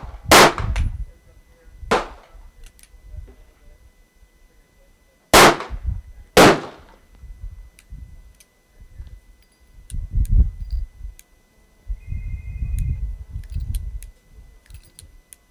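Heavy shots from a Freedom Arms revolver firing the belted .500 Wyoming Express cartridge, spread over the first seven seconds, with a sharp crack and a rolling echo after each.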